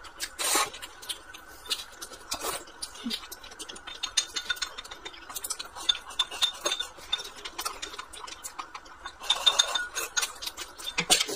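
Wooden chopsticks tapping, clicking and scraping against a glass bowl as rice is shovelled into the mouth, with eating noises; a slurp of a vermicelli strand about half a second in and a longer scraping, slurping stretch near the end.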